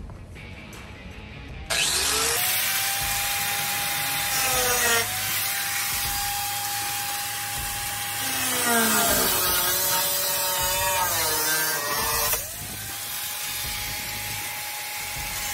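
Handheld corded electric cutting tool cutting through the rusted steel floor pan of a Jeep TJ. It starts a little under two seconds in: a harsh grinding noise over a high motor whine that sags as the blade bites and climbs back as it eases. About twelve seconds in it cuts out briefly and spins up again.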